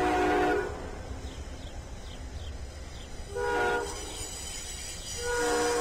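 Locomotive multi-chime air horn. A long blast ends half a second in, a short blast comes about three seconds later, and a long blast starts near the end, over the low rumble of the train. The pattern fits the end of the long-long-short-long grade-crossing signal.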